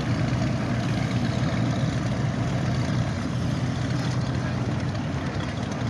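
Motorboat engine running steadily: a low, even hum over a wash of water and wind noise.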